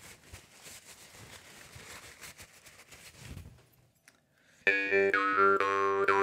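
Soft paper rustling as a rhombus-frame morchang (Rajasthani jaw harp) is unwrapped. About three-quarters of the way in the morchang starts suddenly: a loud steady drone with overtones changing in a quick rhythm, played in open-close glottis style.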